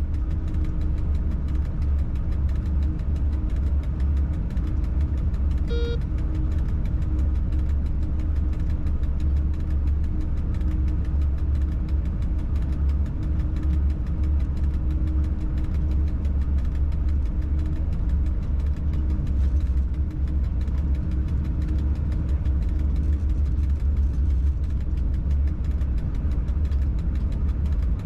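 Steady low rumble and hum of a freight locomotive running, heard inside the driver's cab, with one short beep about six seconds in.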